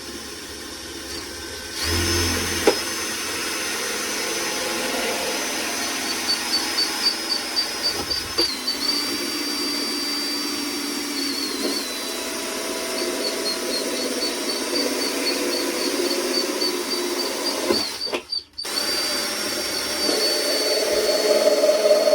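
Electric drill running as it bores holes in a plastic sandwich box, its motor whine starting about two seconds in, pulsing unevenly for a few seconds, stopping briefly near the end and starting again.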